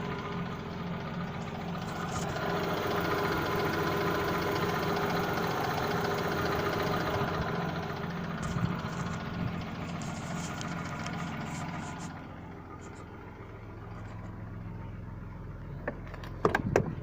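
Car engine idling from a cold start with a knock, which the owner suspects comes from a worn piston pin. It runs louder for the first several seconds, then settles to a quieter idle about twelve seconds in. A few sharp clicks come near the end.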